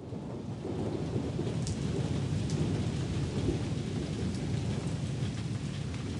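Cartoon sound effect of steady rainfall, with a low rumble underneath. It fades in at the start and holds evenly.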